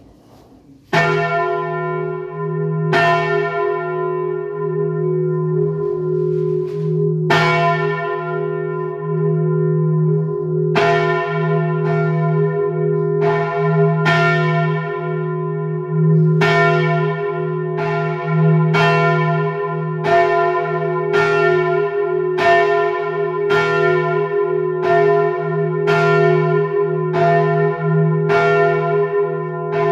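Swinging church bells of Utrecht's Dom Tower starting to ring, heard close up from inside the bell chamber. The first strike comes about a second in. Strikes then come a few seconds apart and, from about eleven seconds on, roughly once a second, under a long, steady ringing hum.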